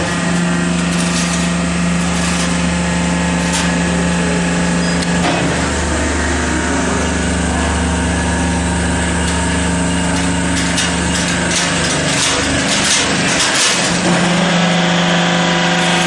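Hydraulic crimped wire mesh machine running: a steady motor hum, with scattered metallic clicks and clanks as the mesh is worked. The hum drops away briefly near the end and then returns.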